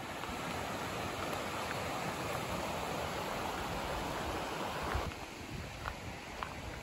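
Steady rushing of a mountain stream, which drops away about five seconds in. A few faint crunching footsteps on a gravel path follow.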